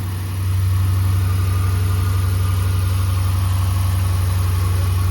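Dodge Durango R/T's V8 engine idling steadily, running after its new water pump was fitted and the cooling system refilled with coolant.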